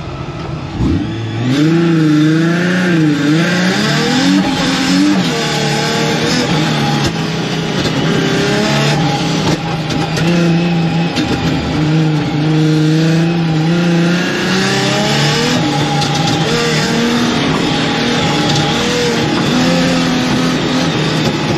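Car engine revving hard from a launch about a second in, its pitch climbing and dropping over and over with throttle and gear changes on an autocross run. It is heard from inside the cabin, with the exhaust's silencer insert fallen out.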